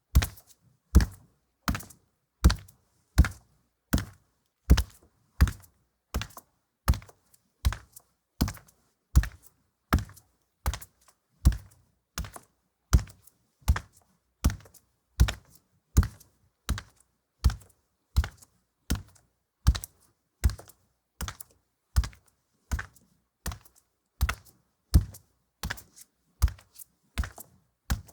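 Heavy footsteps walking on a linoleum floor at a steady pace, about three steps every two seconds, each step a dull thud with a sharp click.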